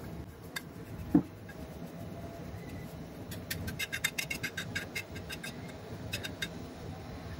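A metal spoon clicking and scraping against a frying pan as crumbled egg yolk is stirred over the heat to render out its oil. The clicks come in quick clusters, with a single short, louder knock about a second in.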